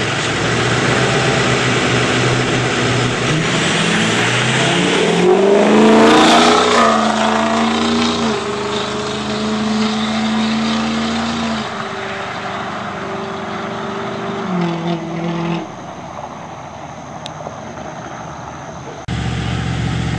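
Two drag-racing cars launching at full throttle, their engine notes climbing steeply to a peak a few seconds in, then stepping down through gear changes as they pull away and fade down the track. Near the end the sound cuts abruptly to engines idling at the start line.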